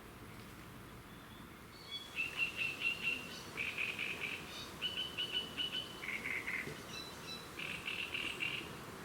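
A songbird singing: from about two seconds in, a run of short phrases, each a quick string of repeated notes, shifting pitch from phrase to phrase.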